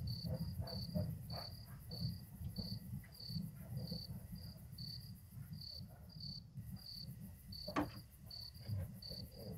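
Crickets chirping, a regular high chirp about two to three times a second, over a faint low rumble. One brief sharp sound about eight seconds in.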